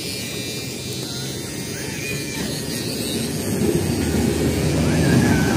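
Electric hair clippers running with a steady low buzz during a haircut, growing a little louder toward the end as they work close to the ear.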